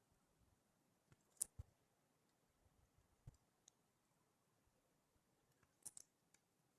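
Near silence with a few faint, scattered clicks and taps: a sharp pair about a second and a half in, a softer one near the middle and another small cluster near the end.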